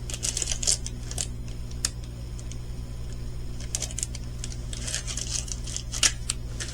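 Small plastic bags of pearl beads from a diamond-painting kit being handled: crinkling plastic and light clicks, in two spells with a quieter stretch between.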